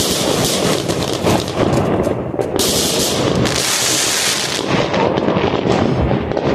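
Aerial fireworks going off in quick succession: a continuous barrage of bangs and crackles. About two and a half seconds in, a dense crackle of crackling stars swells and lasts about two seconds.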